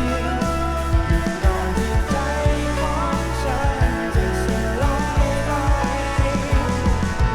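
Rock music played from a vinyl record: a band with steady drum beats, bass and guitars, with a melodic line gliding up and down in the middle of the range.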